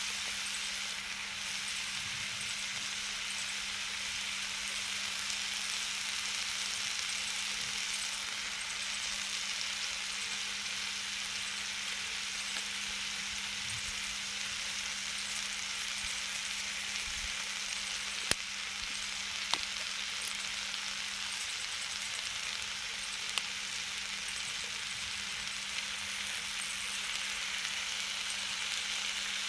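Food sizzling steadily on a hot griddle, with a few sharp pops a little past halfway. A steady low hum runs underneath.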